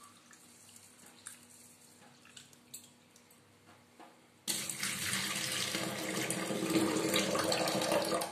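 Rice being washed in a steel bowl under a kitchen tap: faint rubbing and clicks at first, then, about four and a half seconds in, loud splashing of water into a stainless steel sink as the cloudy rinse water is poured off the rice.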